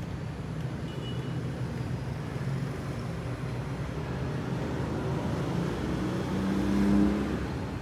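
Street traffic: a vehicle engine running steadily, with one vehicle growing louder and rising slightly in pitch as it passes about seven seconds in.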